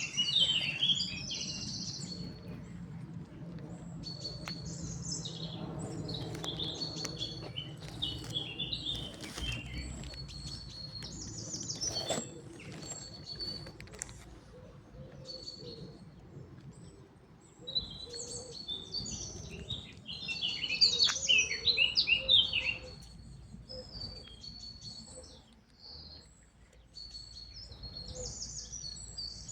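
Birds chirping and twittering, many short calls and trills overlapping, with the loudest, busiest flurry about two-thirds of the way through.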